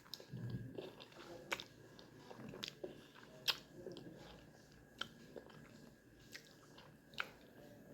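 Faint, close-miked chewing of spicy Buldak carbonara instant noodles, with sharp wet mouth clicks and smacks every second or so.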